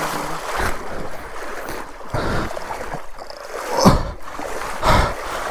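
Water and mud sloshing and splashing as a stalled bike is pushed through a waterlogged pit, in uneven surges about once a second.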